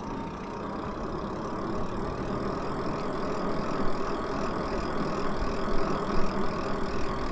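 Lyric Graffiti e-bike riding along a paved street: a steady rush of tyre and wind noise that builds a little over the first few seconds.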